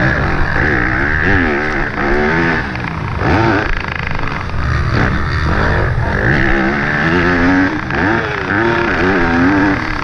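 Yamaha YZ250F's four-stroke single-cylinder motocross engine at race speed, revving up and dropping off again and again as the rider works the throttle and gears around the track.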